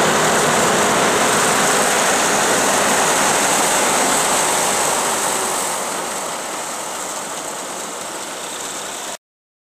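John Deere tractor engine and its towed multi-deck rotary mower cutting turf, a steady dense engine-and-blade noise. It fades as the machine draws away, then cuts off abruptly near the end.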